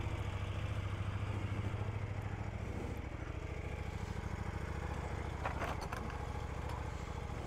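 KTM Duke motorcycle engine idling steadily with a low, even pulsing rumble. A few faint clicks about five and a half seconds in.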